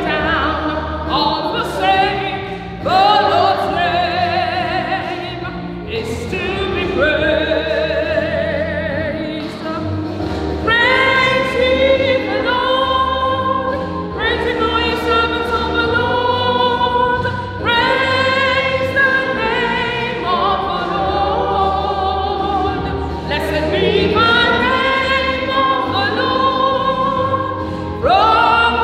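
Church choir singing long held notes in several parts, the voices wavering with vibrato, over a steady low accompaniment.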